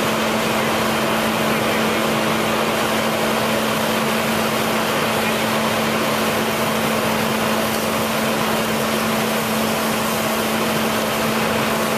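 An engine running steadily: a constant low hum under an even hiss, unchanging throughout.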